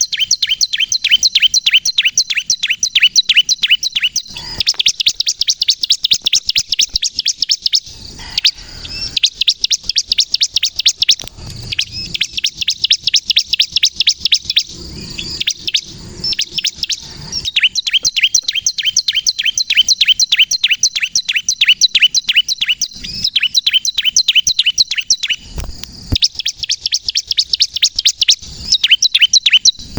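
Bar-winged prinia (ciblek kristal) singing: long runs of rapid, high, repeated chirps, about seven a second, broken by short pauses.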